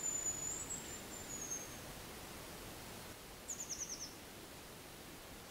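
Hazel grouse whistle song: a long, thin, very high whistle that steps down in pitch, then about two seconds later a quick run of about six falling notes.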